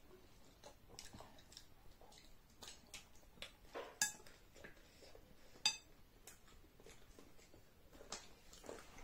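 Spoons clinking and scraping against bowls during eating: a run of soft small clicks, with two sharper clinks about four and five and a half seconds in.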